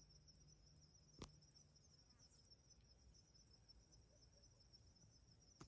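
Faint, steady high-pitched trilling of insects such as crickets, with a sharp click about a second in and another near the end.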